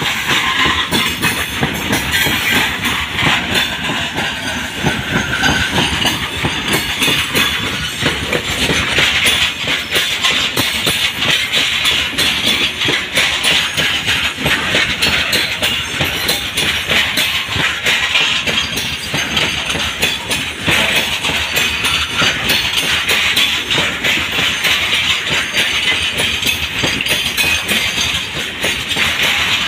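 A goods train of tarpaulin-covered open wagons rolling past close by: steady, loud wheel-on-rail noise with a continual clickety-clack of wheels over rail joints.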